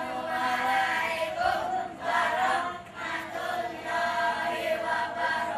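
A group of children singing together in unison, in short phrases.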